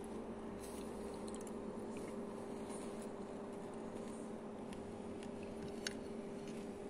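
Quiet room tone: a steady low hum with a few faint scattered clicks, one slightly sharper near the end.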